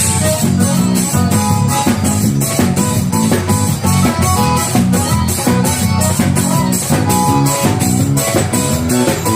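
Instrumental band music: guitar over a drum kit keeping a steady beat of about three to four strikes a second.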